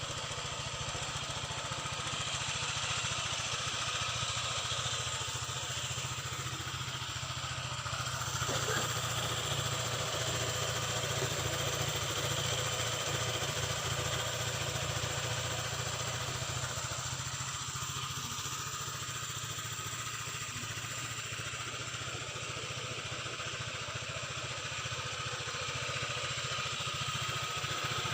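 Honda PCX scooter engine idling steadily.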